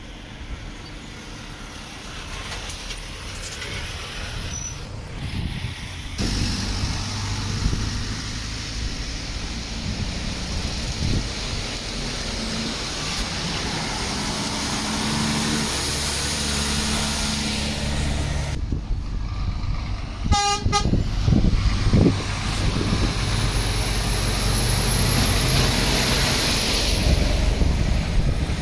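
Lorry engines running and moving past, growing louder over the stretch, with a short truck horn toot about twenty seconds in.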